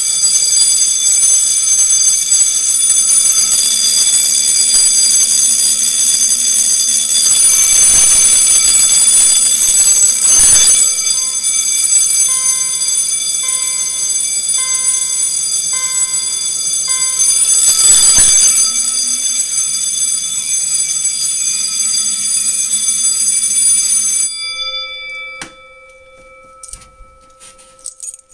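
Six-inch fire alarm bell (SUNS CB-6) ringing continuously and extremely loud, set off by a supervisory test from a key test switch. It cuts off about 24 seconds in and rings down. Short, evenly repeating beeps sound along with it for a few seconds midway.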